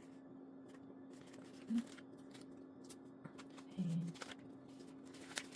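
Paper and sticker sheets being handled while stickers are placed in a planner: faint rustles and light clicks over a steady low hum, with two brief low sounds about two and four seconds in.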